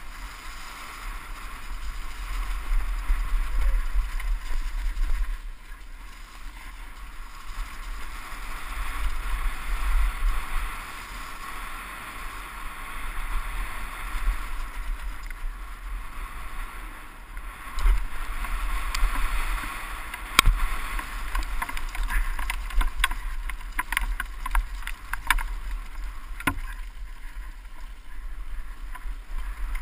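Wind rushing over a helmet-mounted camera and tyres running over leaf-covered dirt on a downhill mountain bike descent, the rush swelling and easing with speed. In the last third, frequent sharp clicks and knocks as the bike rattles over bumps.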